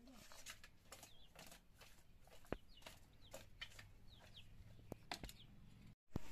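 Faint high cheeping of a chick, a few short falling notes, over light scattered clicks and taps of fish pieces being handled in a steel bowl.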